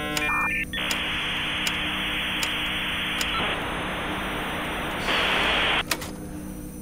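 Dial-up modem connection noise: a harsh, telephone-band hiss that steps up and down in level in stages, then cuts off suddenly with a click about six seconds in.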